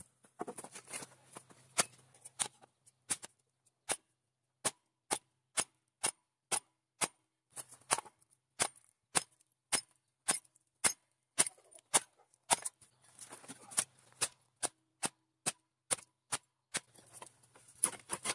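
Sharp knocks of metal striking metal, repeated steadily about twice a second, some louder than others, with a faint low hum that comes and goes.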